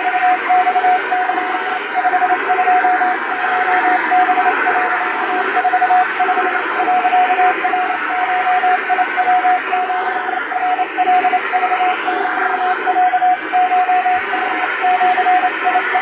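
Japanese (wabun) Morse code telegram sent fast on an electronic keyer: a single steady tone keyed on and off in quick dots and dashes, over a steady hiss.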